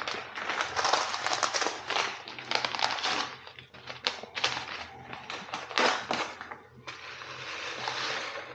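Plastic food packaging crinkling and rustling with many sharp crackles, densest in the first three seconds: a box of alphabet pasta being handled, then a packet-soup sachet torn open and tipped into a steel thermos food jar.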